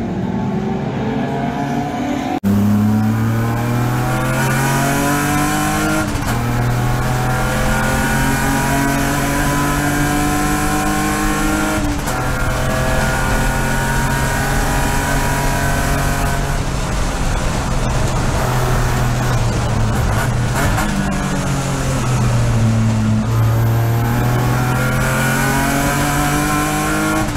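BMW E46 race car's engine heard from inside the cockpit at full throttle on track, revs climbing and dropping back with each upshift. Near the middle it holds steady, then falls about two-thirds of the way in as the car slows for a corner, and climbs again. The first couple of seconds are a car on track heard from trackside, before a sudden change to the in-car sound.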